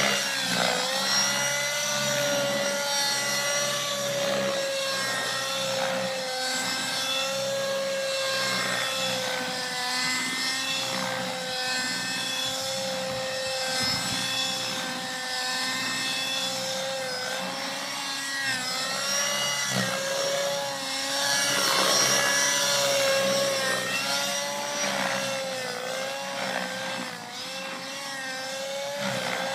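Nitro-engined Align T-Rex RC helicopter in flight: a steady high engine whine with the rotor, its pitch wavering slightly throughout.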